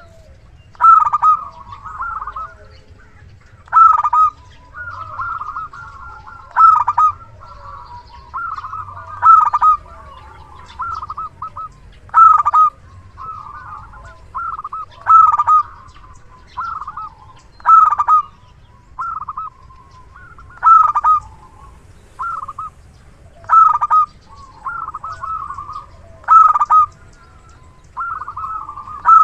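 Zebra dove (perkutut) cooing over and over: a loud phrase about every three seconds, with softer notes running between them.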